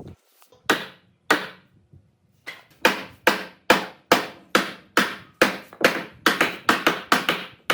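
Hammering on wood: two blows, a short pause, then a steady run of sharp blows about two to three a second, each with a brief ringing tail.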